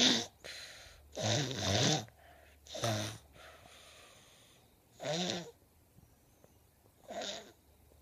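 Snoring in sleep: a buzzing snore about every two seconds, four in all, the first the longest at about a second, with quiet breathing between.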